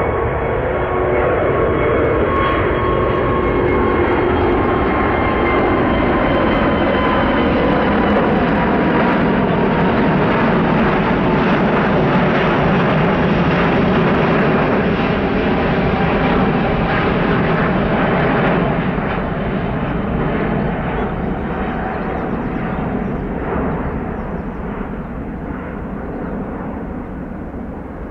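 Emirates Airbus A380's four jet engines at take-off climb thrust: a loud roar with some crackle and high tones that slide slowly down in pitch as it passes, fading over the last ten seconds or so as it climbs away.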